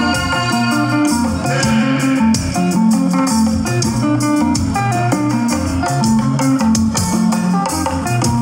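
Live band music with a steady dance beat: an electric guitar picks quick, short high notes over a bass guitar stepping through a bouncing line, with drums and shakers.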